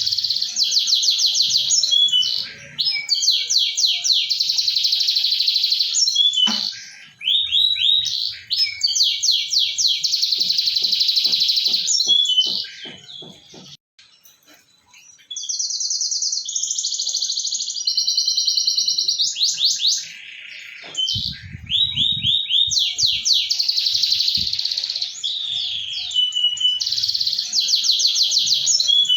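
Domestic canary singing long, fast rolling trills and chattering phrases, with a brief pause about halfway through. It is a lure song played to prompt a canary that has stopped singing to start again.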